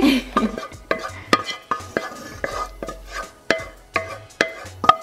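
A spoon scraping thick cheese sauce out of a metal pan into a bowl: a steady run of scrapes and light clinks, about two a second.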